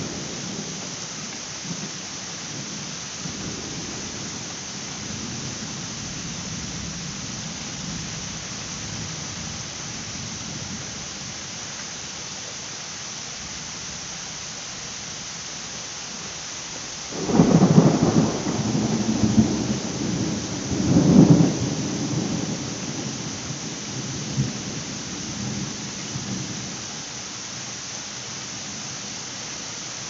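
Steady hiss of a heavy rain downpour, with thunder rumbling low; a little over halfway through, a loud thunderclap breaks in, swells again about four seconds later, and rolls away over several seconds.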